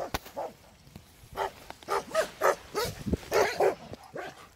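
Dogs barking through a chain-link fence in a quick series of short barks, two to three a second, starting about a second and a half in.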